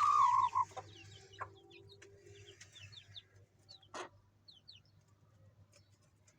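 Aseel hen and her chicks calling: a loud wavering call from the hen right at the start, then the chicks' thin high peeps, each a quick falling chirp, scattered through the rest. A single sharp knock about four seconds in.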